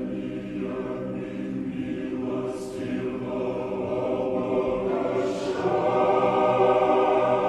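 Choir singing slow Orthodox liturgical chant, held chords growing gradually louder.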